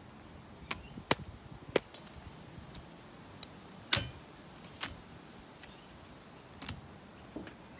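Sharp, irregular plastic clicks and snaps as a new wiper blade's connector is worked onto a car's wiper arm and clipped into place, the loudest about four seconds in.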